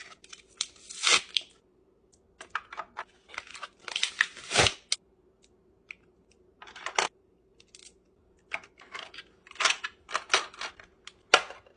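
Makeup products and their plastic packaging being handled and set down: irregular clicks, taps and short crinkling rustles, over a faint steady hum.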